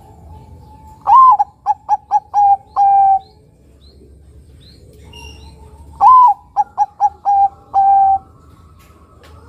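Caged zebra dove (perkutut, Bangkok type) cooing its song twice, about five seconds apart. Each phrase opens with a louder note, runs into a quick string of short staccato coos and ends on a longer held coo.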